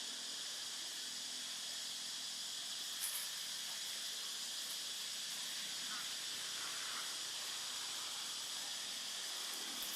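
Steady high hiss of outdoor background noise, with a brief click about three seconds in.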